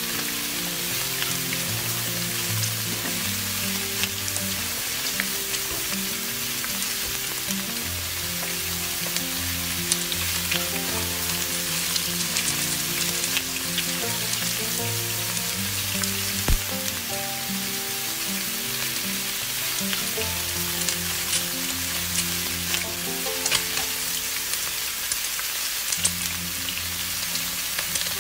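Pumpkin-flower fritters in gram-flour batter deep-frying in hot oil in an iron kadai, with a steady sizzle and scattered crackles and pops. Background instrumental music with a slow melody plays underneath.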